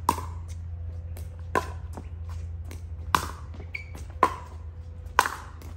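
Pickleball rally: paddles striking the plastic pickleball, five sharp pops about a second apart, each with a short hollow ring.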